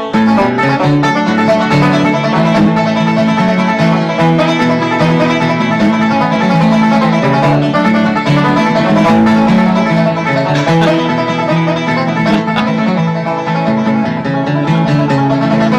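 Background music: a lively instrumental country or bluegrass tune with quick banjo picking over guitar.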